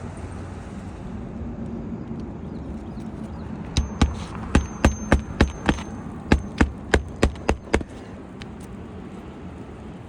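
About a dozen sharp knocks in a quick, fairly even run, roughly three a second, starting about four seconds in and stopping about four seconds later. Several of them ring briefly with a high metallic tone.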